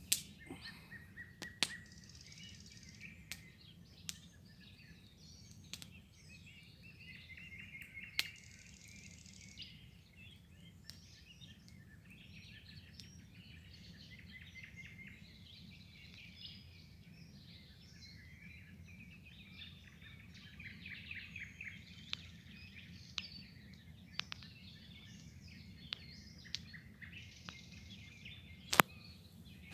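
Wild songbirds singing and chirping, with several trills overlapping, over a faint steady low rumble. A few sharp clicks break in, the loudest one near the end.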